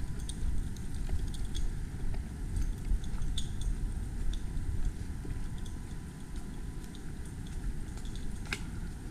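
Low steady rumble of wind on the microphone during a walk on a forest trail, with scattered light crunching footsteps and a sharper click about eight and a half seconds in.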